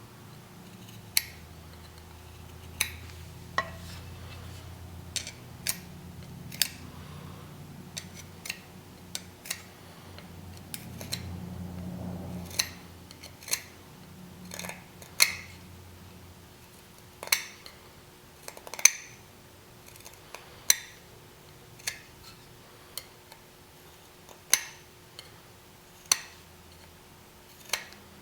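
Light metallic clinks and taps of steel on steel, irregular and about one a second, some ringing briefly.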